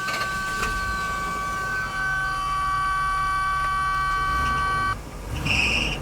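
Steady electronic warning buzzer of the 1988 Rolls-Royce Corniche II sounding just after the key is turned, cutting off about five seconds in, over the low steady running of its freshly started 6.75-litre V8. A short high chirp follows near the end.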